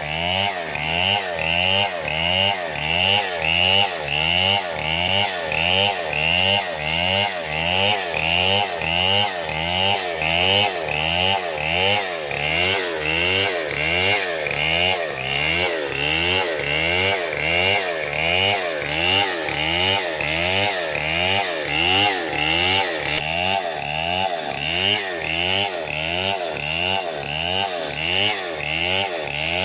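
Chainsaw running while cutting wood. Its pitch and loudness rise and fall in a regular cycle about twice a second.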